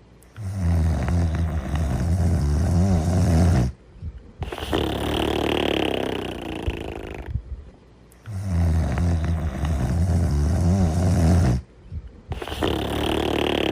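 A sleeping character snoring in two even cycles. Each cycle is a long, low snore of about three and a half seconds, then a breathy out-breath.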